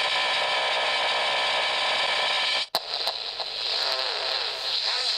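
Electronic sci-fi sound effects. A steady, buzzy drone made of many tones cuts off suddenly about two and a half seconds in. A second effect follows at once, made of warbling tones that wobble up and down in pitch.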